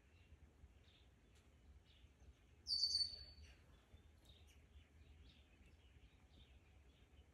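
Faint small songbirds chirping again and again, with one loud, high, sharp bird call about three seconds in.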